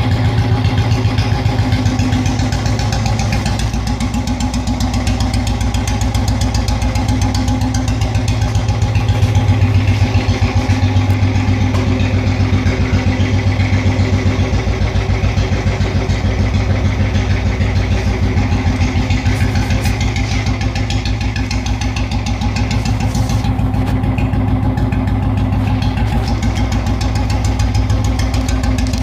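Royal Enfield Bullet 350 single-cylinder four-stroke engine idling steadily with the decompressor pin fitted, with an even, regular beat.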